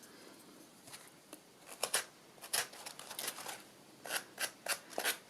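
Small sanding block rubbing the edges of an MDF butterfly cut-out in short scratchy strokes, a few scattered strokes at first, then a steady run of about three or four a second from a little past halfway.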